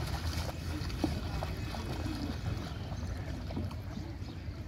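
River-bank ambience: a steady low rumble, with water splashed by hand near the start, a few small knocks, the sharpest about a second in, and faint distant voices.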